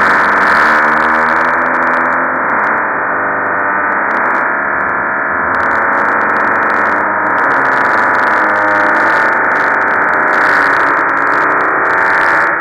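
Loud, dense drone of many layered pitched tones, a stack of processed fart sound effects made to sound like a demonic synthesizer chord. It stops abruptly at the end.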